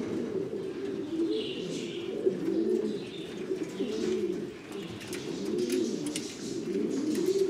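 Buchón gaditano pouter pigeons cooing, deep rolling coos from several birds overlapping one another without a break.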